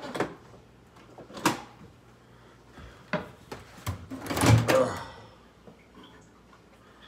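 A series of sharp knocks and clunks from things being handled in a kitchen, such as a drawer, door or dishes. The loudest clatter comes about four and a half seconds in.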